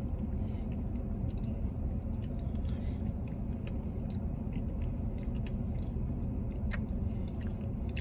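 Chewing and mouth smacks while eating spoonfuls of soft-serve ice cream with cake pieces, with many short clicks scattered throughout, over a steady low hum in a car cabin.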